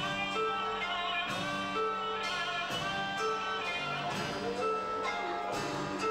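Live band playing a slow waltz: plucked string notes over long held tones.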